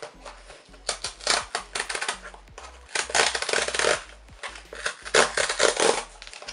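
Cardboard book mailer's easy-open tear strip being pulled, the cardboard ripping in a series of short tears, a little at a time, with a longer tear about three seconds in.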